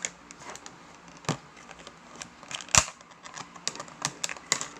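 Handling noises: scattered clicks, taps and crinkles, with one sharper knock a little before three seconds in.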